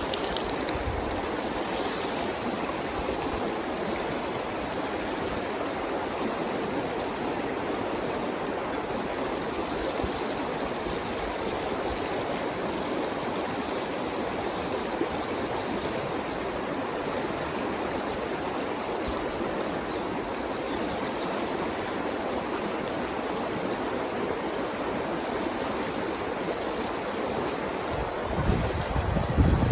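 A river flowing: a steady, even rush of water. Wind buffets the microphone near the end.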